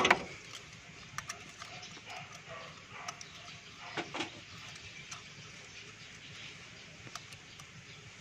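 Light metallic clicks and taps of a wrench and feeler gauge on the rocker arms of a Mitsubishi 4G13 engine, with the engine stopped for valve clearance adjustment. A louder brief sound comes right at the start and another about four seconds in.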